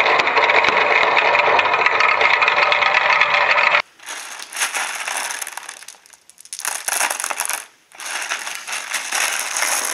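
Many small plastic balls clattering without a break as they roll around the bowls and chutes of a plastic marble run. About four seconds in this cuts off suddenly, and a hand stirs and scoops through a box of the balls, rattling them in spells with short pauses.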